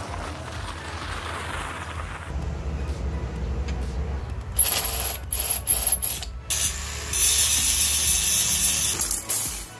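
Workshop noise from work on a steel quad-bike frame: a run of sharp clicks and rattles, then a loud, steady hiss from about seven seconds in, over bass-heavy background music.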